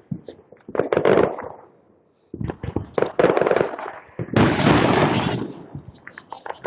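Consumer fireworks going off in three spells of rapid crackling pops, about a second in, about two and a half seconds in, and a loudest one around four and a half seconds in, then thinning to scattered crackles.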